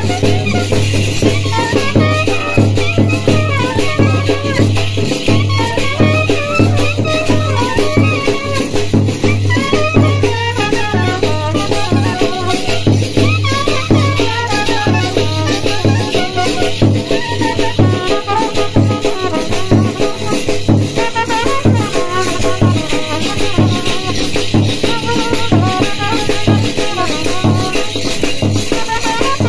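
Band-party music: a clarinet plays a wavering, ornamented melody over a busy, steady rattling percussion beat, with trumpets joining in.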